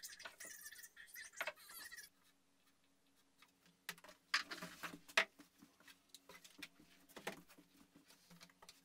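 Light crackly clicking and tapping from using a laptop, then a few sharp knocks and clunks as the laptop and the plywood wall-mounted articulating arm are handled and folded.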